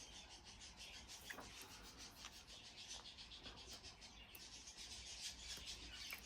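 Faint, quick repeated scratching and rubbing with a few light clicks: a small plastic clip and wiring being handled and worked into place by hand.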